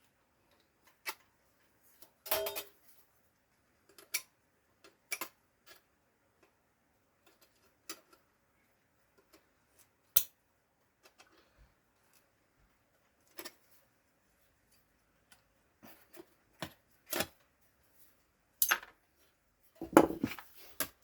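Scattered sharp metallic clicks and clinks of hand tools working a small sheet-steel repair piece, spaced a second or two apart, with a short clatter near the end.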